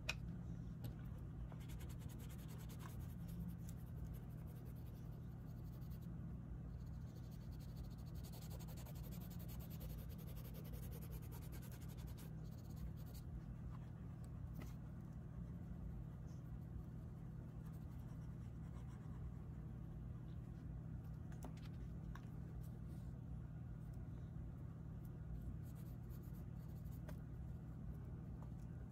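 Faint scratching and rubbing of a cotton swab and an oil pastel stick on sketchbook paper, blending and layering pastel, over a steady low hum.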